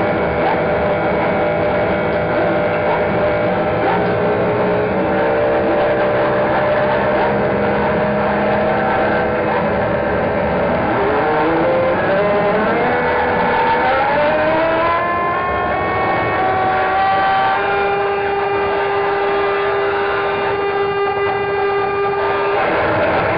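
Live noise music: a dense, loud wall of layered drones and sustained tones. Several pitches slide upward together around the middle, then one steady tone is held above the rest for a few seconds near the end.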